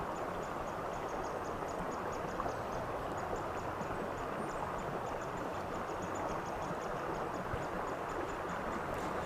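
Steady rush of a flowing river current, with a faint, rapid, high ticking of about four a second running through it.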